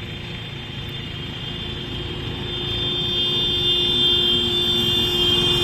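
Yamaha MT-15's 155 cc single-cylinder engine running steadily as the motorcycle rides toward the listener, growing louder as it approaches.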